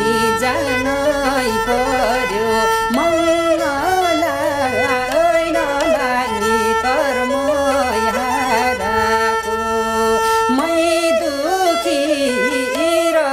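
Nepali sarangi, a bowed folk fiddle, playing a wavering folk melody over a steadily held note, with a man singing along.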